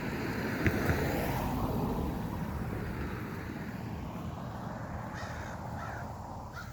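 Crows cawing, a few short caws in the last couple of seconds. A broad rushing swell of noise fills the first few seconds, with a sharp click about a second in.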